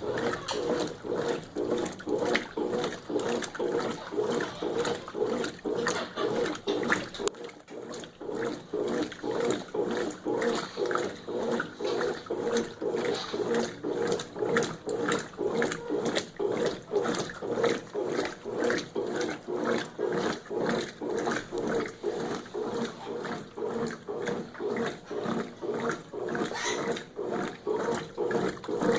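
Brastemp 11 kg top-load washing machine agitating a load of jeans: a rhythmic churning and swishing at about two strokes a second over a steady motor hum, faltering briefly about seven seconds in.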